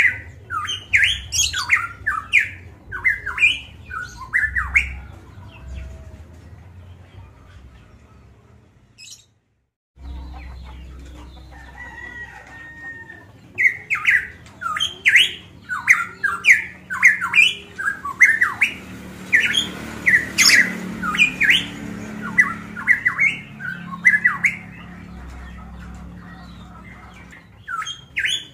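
Pitohui (cucak emas papua) calling from its cage in rapid runs of short, loud, squawky notes. It gives one bout, goes quiet for a few seconds with a brief dead gap in the middle, then calls again at length. A low steady hum runs underneath.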